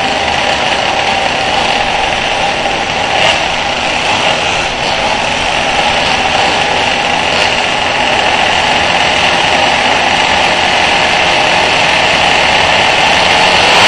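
A pack of small two-stroke pocket bike engines running together on a starting grid, a dense steady buzz that grows louder toward the end as the start approaches.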